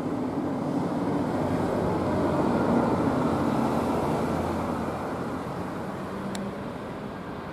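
Jet airliner engines on the runway: a steady rumble with a low hum that swells to its loudest about three seconds in, then fades.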